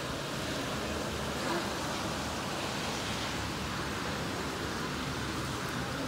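Torrential rain falling: a steady, even hiss.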